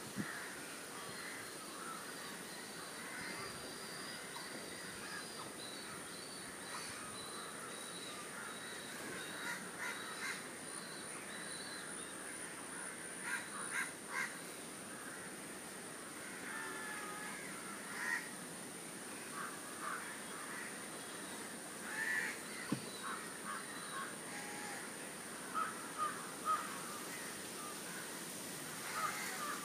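Crows cawing on and off, with other birds calling, over a steady high-pitched background hiss.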